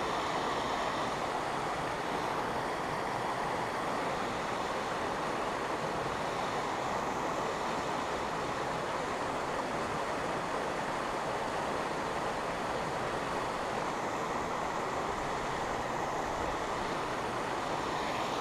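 Steady rush of a mountain stream and small waterfall running over rocks, an even wash of water noise that holds the same level throughout.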